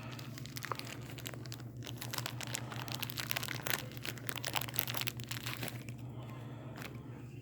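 Crinkling rustle and small irregular clicks of hands rummaging through packaging to pick out a small lock tumbler.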